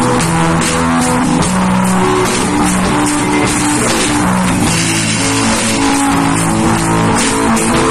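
A rock band playing live: guitars over a drum kit with cymbals, loud and continuous, with held chords changing every half second or so.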